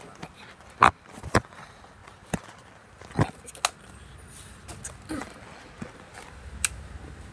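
Handling noise: a string of about seven sharp, irregularly spaced clicks and knocks from hands working right at the phone's microphone, the loudest about a second in.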